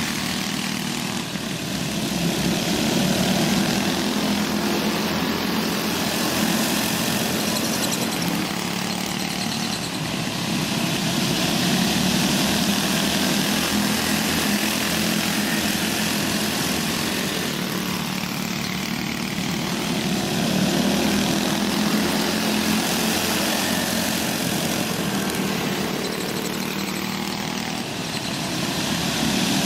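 Several small go-kart engines racing together around a dirt oval, a steady buzzing drone that swells and fades about every eight seconds as the pack laps past.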